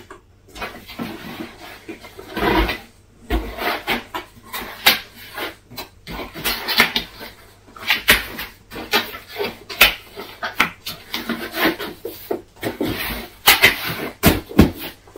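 Cardboard shipping box being folded shut by hand: flaps creasing, scraping and tucking in, heard as an irregular string of short knocks and rustles.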